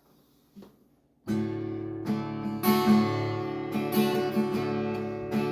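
Instrumental intro of a song: acoustic guitar chords strummed and ringing, starting suddenly about a second in after a faint click.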